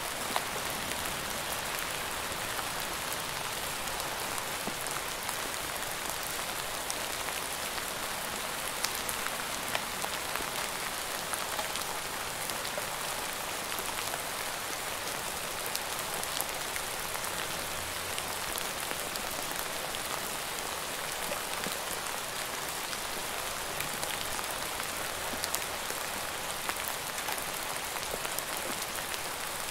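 Steady rain falling, an even hiss with scattered louder drops ticking through it.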